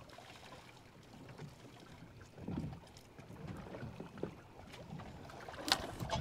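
Quiet water lapping against the hull of a small boat drifting with the engine off, with light wind, a few soft knocks and a couple of sharp clicks near the end.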